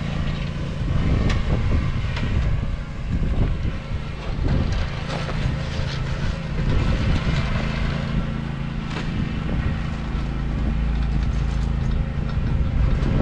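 John Deere Z530R zero-turn mower's engine running steadily under way, with irregular rattles and knocks from the machine throughout.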